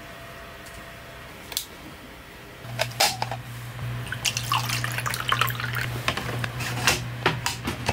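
Hands handling and fitting together a small caged camping lantern, with a run of small sharp clicks and rubbing. A steady low hum starts about a third of the way in.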